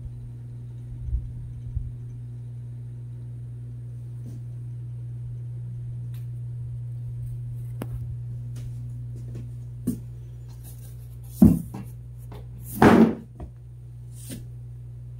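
Steady low hum with scattered knocks and thumps. Two much louder knocks come near the end, the second longer and scuffing.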